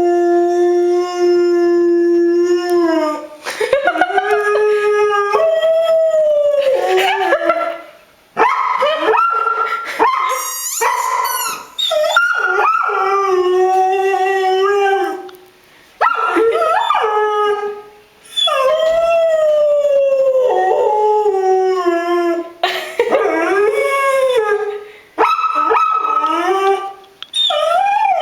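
A dog howling over and over: long drawn-out howls of a few seconds each that hold a note and then slide up and down in pitch, broken by short pauses.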